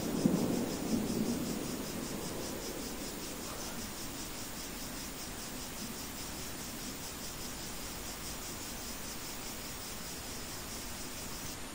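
Rain-and-thunder ambience: a roll of thunder dies away over the first couple of seconds, leaving a steady rain hiss with crickets chirping in a fast, even pulse.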